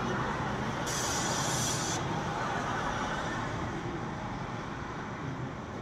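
Steady outdoor traffic noise, with a sharp hiss about a second in that lasts about a second.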